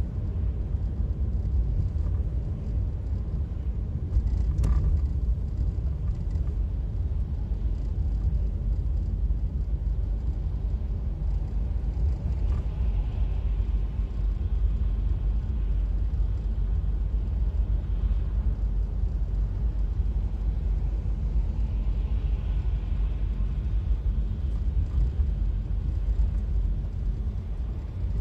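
Steady low rumble of a car's engine and tyres on a wet road, heard from inside the cabin while driving, with a single short click about five seconds in and faint tyre hiss from passing traffic swelling twice.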